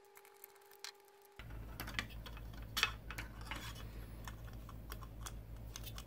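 Near silence for about the first second and a half. Then small, irregular clicks and taps from a precision screwdriver backing out tiny screws and hands handling the plastic fan shroud of an Xbox One power brick, over a low steady hum.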